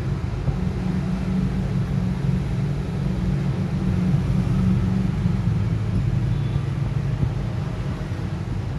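Steady low rumble in the background, unchanging throughout.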